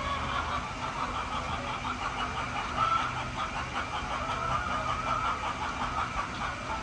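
Dense, continuous chatter of a large flock of hens in a poultry house, over a steady low mechanical hum.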